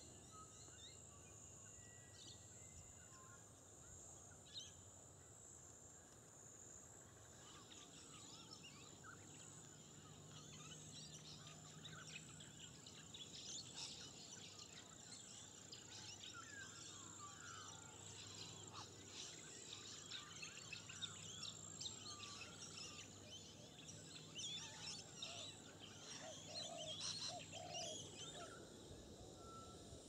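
Faint wetland ambience: small birds chirping and twittering in quick runs, busiest from about a quarter of the way in until near the end, over a steady high-pitched hum.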